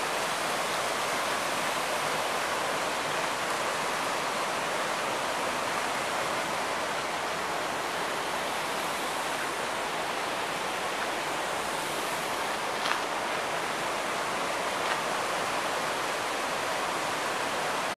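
Fast mountain creek rushing over boulders in whitewater: a steady, unbroken rush of water, with two faint clicks in the second half.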